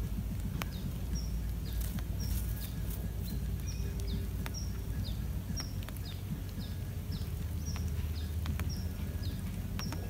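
Thin, high bird chirps repeating about twice a second, each a short clipped note followed by a quick downward slur, over a steady low rumble.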